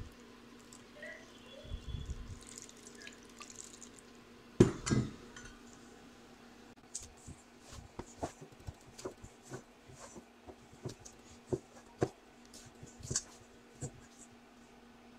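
Water poured onto flour in a stainless steel bowl, then hands kneading dough in the bowl. A loud double knock about a third of the way in, followed by a run of short wet slaps and clicks as the dough works against the steel. A steady low hum runs underneath.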